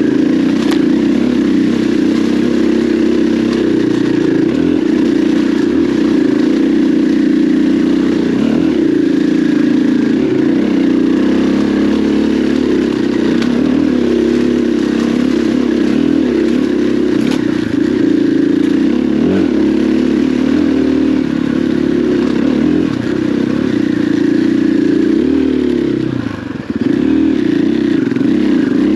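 KTM 500 EXC dirt bike's single-cylinder four-stroke engine running under load, its pitch rising and falling as the throttle is worked. The sound dips briefly near the end as the throttle is rolled off.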